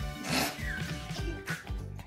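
Background music with a steady beat. A brief noisy burst and a short squeak sound over it in the first second.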